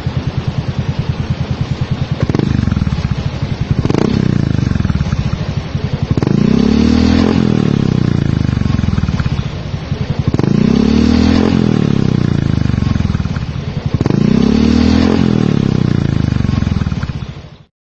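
Yamaha Mio i 125 scooter's single-cylinder four-stroke engine running through an aftermarket Chicken Pipe V5 exhaust. It idles with a fast, even pulse, is blipped briefly twice, then is revved up and let fall back three times. The sound stops abruptly near the end.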